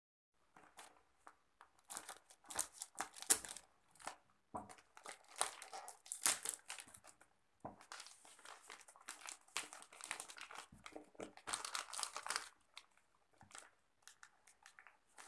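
Clear plastic wrap crinkling and tearing in irregular bursts as it is cut with scissors and pulled off a boxed product. It starts about a second in and dies down near the end.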